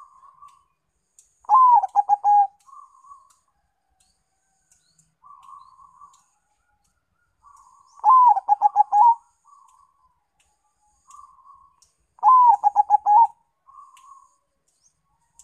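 Bangkok × local crossbred zebra dove (perkutut) singing its staccato cooing song. Three loud phrases, each about a second long, open with a rising note and break into a quick run of stuttering coos. Softer cooing notes come in the gaps between them.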